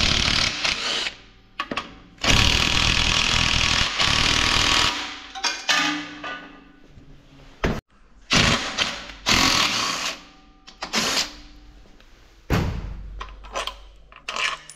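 Power tool running in several short bursts, the longest about 2.5 s, with quieter gaps between: bolts being undone to take the engine apart.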